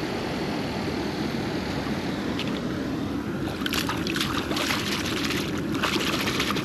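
Steady rush of water flowing over a concrete spillway, with irregular splashing from about three and a half seconds in.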